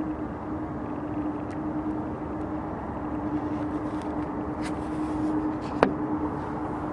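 Steady hum of a motor vehicle: a constant low drone over a rushing background. A few faint clicks, and one sharp click near the end.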